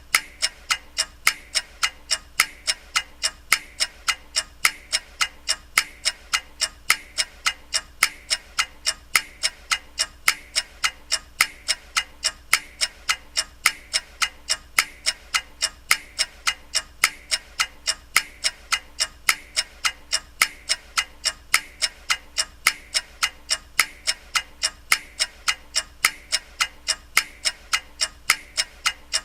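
Clock ticking in a steady, even rhythm: sharp, regularly spaced ticks.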